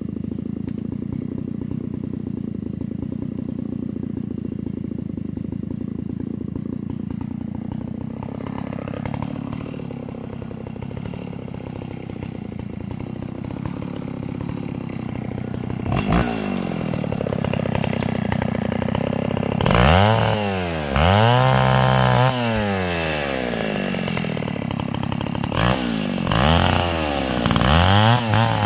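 Two-stroke chainsaw idling steadily, then revved up and back down several times in the second half, with quick throttle blips near the end.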